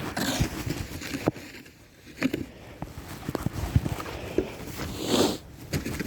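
Snow being shoveled by hand: scattered knocks and footsteps in snow, with short scraping rushes, the loudest about five seconds in.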